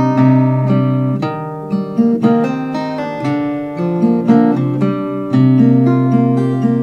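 Steel-string acoustic guitar played fingerstyle with a capo: picked bass notes under a melody, the notes ringing over one another. The playing grows louder again about five seconds in.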